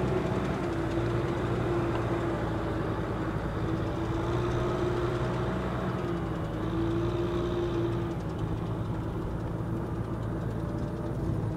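Kubota M6040SU tractor's diesel engine running steadily under load as it tows a loaded trailer through deep water. Its note wavers slightly in pitch and fades a little after about eight seconds as it pulls away.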